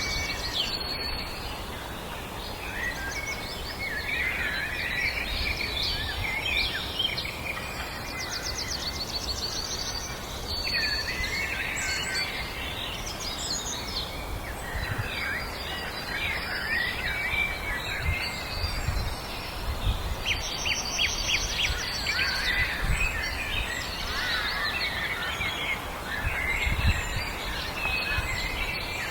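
Several songbirds singing at once in a dense chorus of overlapping chirps and rapid trills, over a steady low background rumble.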